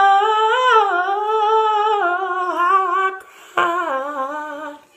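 A young man singing unaccompanied: a long wordless note with wavering runs, then, after a breath about three and a half seconds in, a second held note that steps lower.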